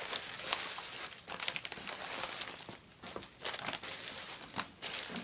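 Clear plastic bags crinkling and rustling as bagged pouches are handled and shifted about, with irregular sharp crackles.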